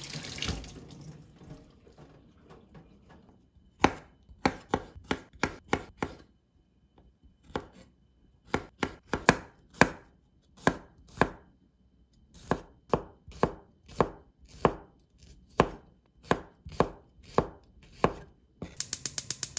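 Tap water running over garlic cloves into a stainless steel sink for the first couple of seconds, then a chef's knife slicing garlic cloves on a wooden cutting board: sharp knocks of the blade on the board in uneven runs of a few a second, ending in a quick burst of rapid chops.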